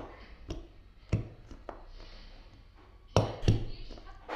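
Hand stapler driving staples one after another: about six sharp clacks at an uneven pace, the loudest two coming close together a little past three seconds in.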